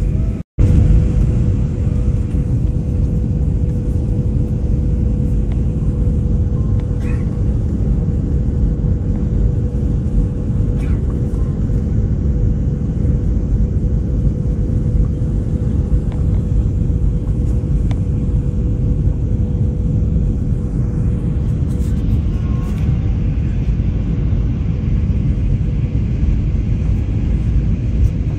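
Steady cabin noise of a jet airliner on landing approach: a low rumble of engines and airflow with a steady hum-like tone over it, heard inside the cabin by the window. The sound cuts out briefly about half a second in.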